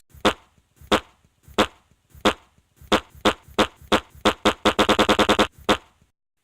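A series of short, sharp percussive strikes, slow at first, about one every half second, then speeding up into a quick run of about five a second before stopping.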